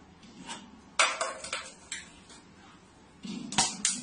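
A few sharp knocks and clinks of hard objects on a shelf: a cluster of them about a second in and two louder ones near the end.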